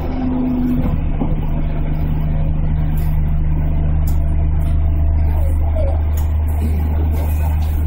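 Steady low hum heard inside the cab of a JR Central 211 series electric train as it moves slowly along a station platform. A fainter whine drops slightly in pitch and stops about a second in.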